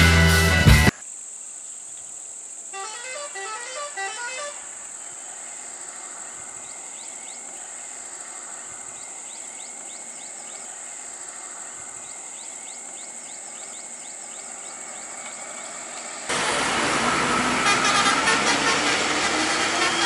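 Music that cuts off about a second in, then a steady high-pitched drone with a vehicle horn sounding a short rising run of notes about three seconds in. Near the end a much louder bus engine comes in, revving with a rising pitch.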